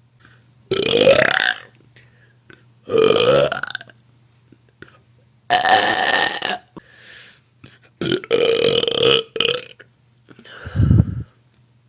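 A woman burping loudly five times in a row, each belch lasting about a second; the first rises in pitch and the last, near the end, is much deeper.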